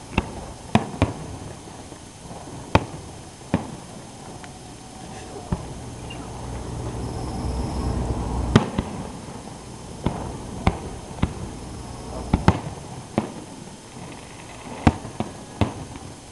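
Aerial firework shells bursting overhead in a display, a sharp bang every second or so at uneven intervals. A low rumble swells through the middle, where the loudest bang comes.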